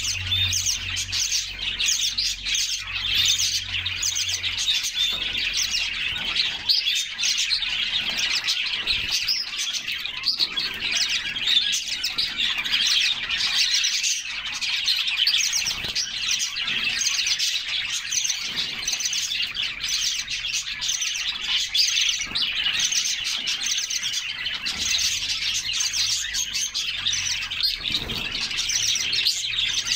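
Several canaries singing together, a dense, unbroken stream of overlapping high chirps and trills.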